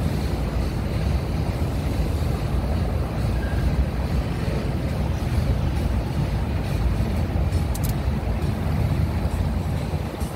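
Wind buffeting the microphone: a steady, fluttering low rumble with a rushing hiss above it.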